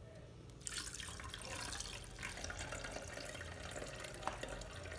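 Liquid poured from a glass bowl into a cloth towel lined over a blender jar, splashing and trickling as it strains through the cloth, starting just under a second in.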